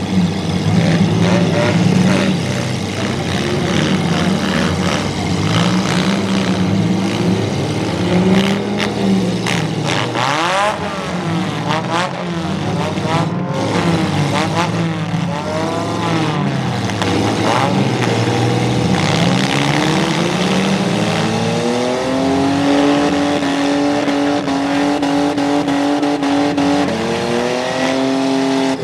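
Demolition derby car engines revving up and down over one another, several at once. A few sharp knocks come through in the middle, and in the last third one engine climbs and is held at high revs as its car pushes with wheels spinning.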